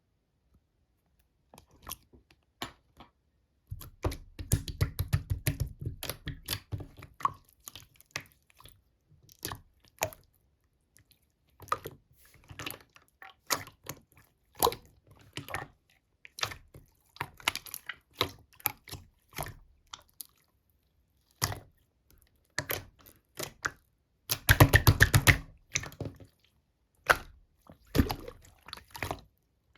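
Slime being squeezed, stretched and pressed by hand, giving wet clicks and small popping sounds of trapped air. There are two runs of rapid clicking, about four seconds in and again near the end.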